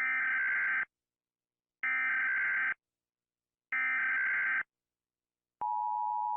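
Emergency Alert System alert: three bursts of the warbling SAME digital header, each just under a second long with about a second's pause between. Then, a little over five seconds in, the steady two-tone EAS attention signal begins.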